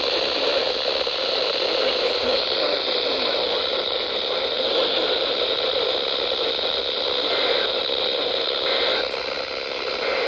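Radio static: a steady, even hiss from a radio receiver, with no voice and no alert tones.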